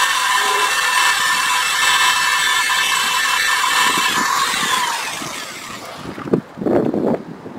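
Power drill motor whining steadily at speed, then winding down with a falling pitch about four and a half seconds in. A few knocks follow as the drill is lifted out.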